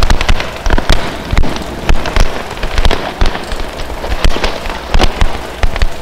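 Dense, irregular crackling and popping: sharp clicks several times a second over a steady low rumble and hiss, as in an experimental noise soundtrack.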